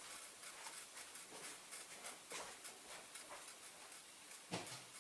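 Faint pattering and ticking as caustic soda granules are shaken out of a nearly empty container into a hot-water bath, with a louder knock near the end.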